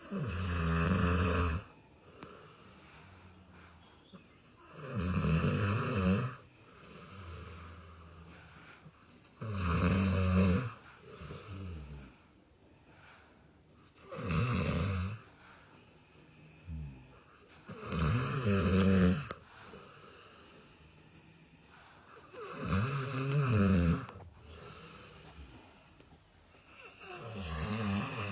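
Sleeping adults snoring: seven loud snores, each about a second long, come every four to five seconds, with fainter sounds between them.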